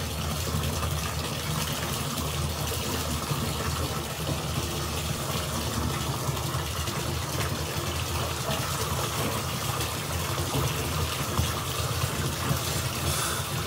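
Bathtub faucet running steadily into a partly filled tub, water pouring and splashing into the bath water.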